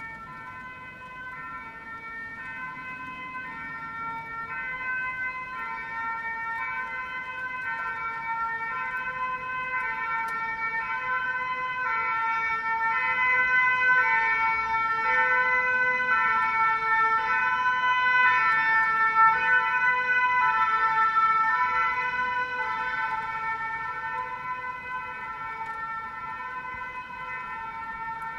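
Belgian emergency vehicle's two-tone siren, stepping back and forth between a high and a low note. It grows louder toward the middle and then fades, as if the vehicle approaches and passes.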